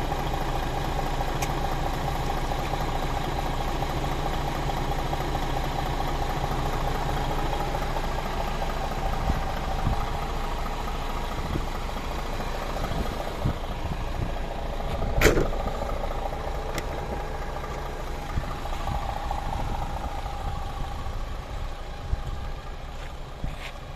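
DAF XF480's PACCAR MX-13 six-cylinder diesel idling steadily. About fifteen seconds in there is one sharp knock as the front grille panel is shut.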